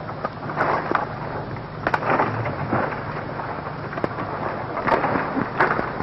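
Dry branches and brush crackling and snapping as a person works through forest undergrowth, with irregular sharp cracks over rustling.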